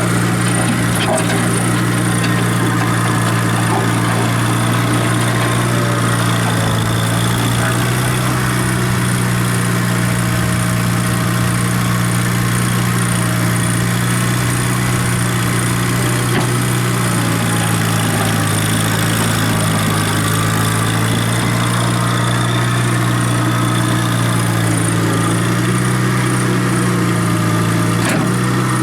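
John Deere 90 skid steer engine running steadily, its pitch wavering slightly up and down for a stretch about two-thirds of the way through.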